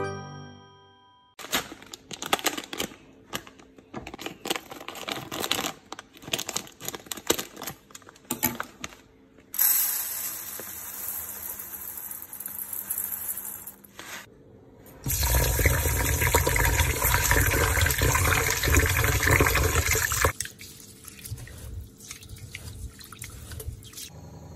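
Dry rice grains rattle and hiss as they pour from a plastic bag into a stainless-steel strainer bowl. Tap water then runs loudly into the bowl for several seconds. Near the end it goes quieter, as the rice is swished and rubbed by hand in the water to wash it.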